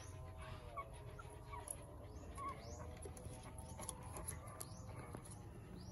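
Faint, short, high squeaks and whimpers of ten-day-old shih tzu–aspin cross puppies, coming every half second or so over a steady high hiss.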